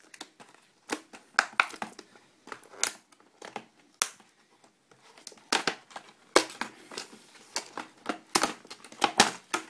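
Packaging being torn and unwrapped by hand to get a small toy RC boat out: irregular crinkling, crackling and tearing in short bursts.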